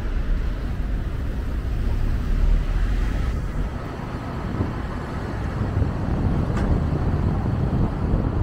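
Road noise of a car being driven: a steady low rumble of tyres and engine that swells and eases a little.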